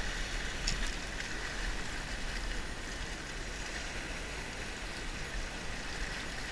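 Steady wash of the sea against a rocky shore, an even hiss with no breaks.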